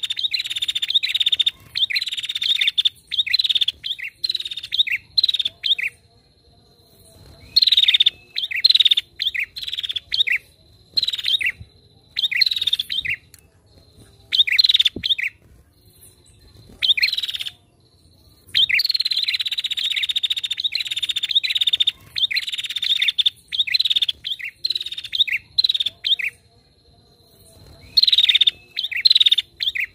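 Female prinia calling in runs of sharp, rapidly repeated chirps. Each run opens with a fast trill that breaks into separate notes, and the runs are divided by pauses of a second or two.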